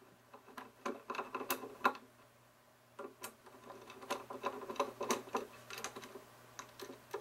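Hand screwdriver turning out the small screws that hold a hoverboard's foot-pad stopper to its frame: a run of light clicks, ticks and scrapes, pausing for about a second two seconds in.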